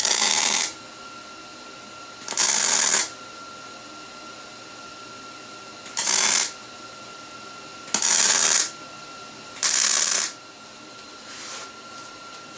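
Welding arc striking in five short tack welds, each a burst of crackling sizzle about half a second long, spaced a second or two apart. A faint steady high whine runs underneath.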